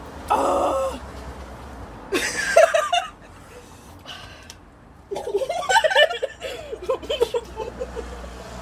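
Women laughing in quick bursts and blowing out hard breaths, reacting to the burn of extra-spicy noodles.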